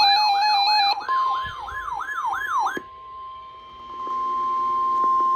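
Electronic emergency alert tones: a siren-like tone sweeping down in pitch about three times a second over a steady tone, then after about three seconds the steady alert tone alone, held without a break.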